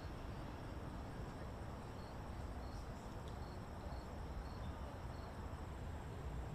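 Faint insect chirping: short high chirps repeating roughly twice a second from about two seconds in, over a low steady rumble.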